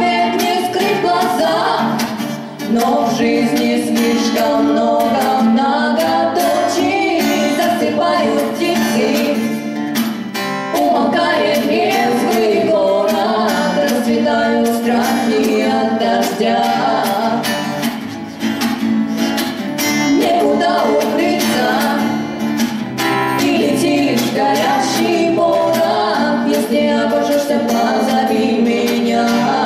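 A live song: a female voice singing over an acoustic guitar accompaniment.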